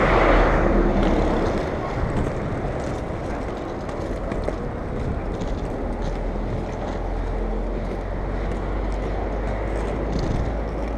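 Inline skate wheels rolling over sidewalk paving, a steady rolling noise with wind buffeting the moving camera's microphone. It is louder for a moment at the start, with a car close alongside.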